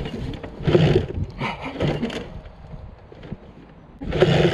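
Two-stroke off-road engine revved in short, uneven bursts, about three times, over a low running sound, with a quieter lull before the last burst near the end.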